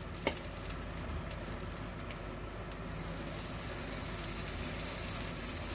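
Moong dal pancake batter sizzling steadily in oil on a hot tawa, with one short tap about a quarter second in.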